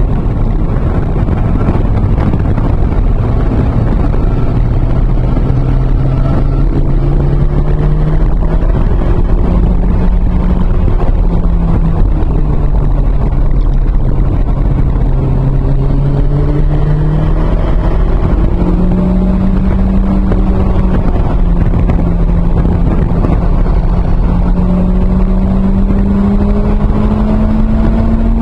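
Mid-mounted 2.0-litre turbocharged four-cylinder engine of a 1993 Toyota MR2 Turbo, heard from inside the cabin under hard track driving: revs rise and fall through the corners, then climb steadily near the end as the car accelerates onto a straight. A constant low road and wind rumble runs underneath.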